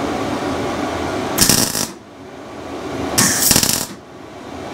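MIG welder striking two short tack welds on steel struts, each a crackling burst of about half a second, roughly a second and a half apart.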